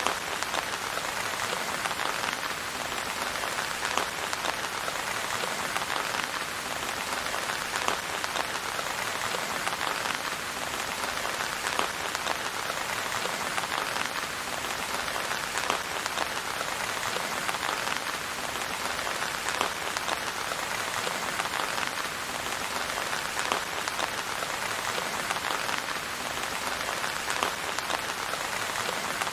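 Steady rain falling on a surface, a dense even patter of many small drops.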